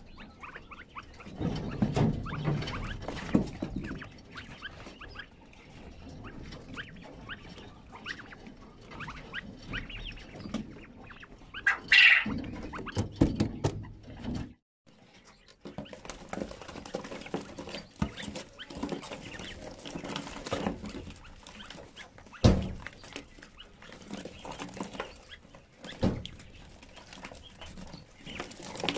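Chukar partridge chicks scratching and pecking in gravelly litter: a busy run of small taps, scrapes and rustles, with a few louder knocks.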